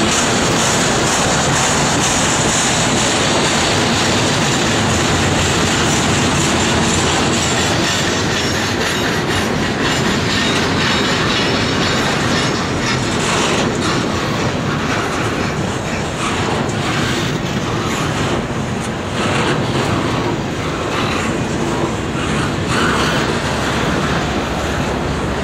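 Double-stack container train's loaded well cars rolling past close by: steady, loud running noise of steel wheels on rail, with a high, thin wheel squeal over the first several seconds and rhythmic clicking of wheels over rail joints through the second half.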